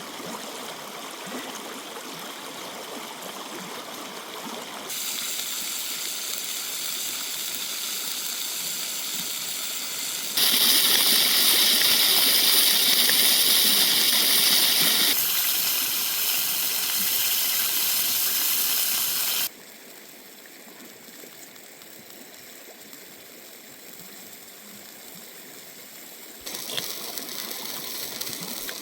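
Steady rushing water noise that jumps abruptly louder or quieter several times, loudest in the middle section.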